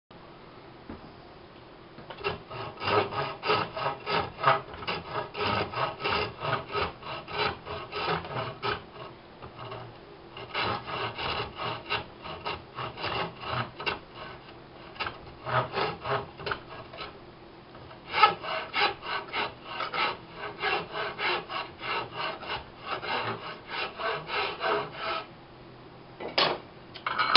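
Hand rasp scraping back and forth along a dry sycamore cane, shaping the wood. The rapid strokes come at about three or four a second, in three runs of several seconds with short breaks between.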